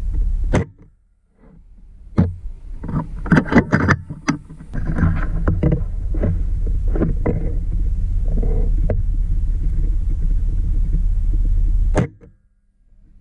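Two sharp cracks from a PCP air rifle shooting, one about half a second in and one near the end, each cut off abruptly. A steady low rumble runs under them, with a flurry of short clicks and knocks in between.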